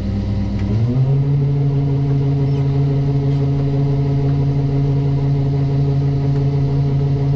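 Farm machine's diesel engine running, then throttled up about a second in, its pitch rising quickly and then holding steady at the higher speed.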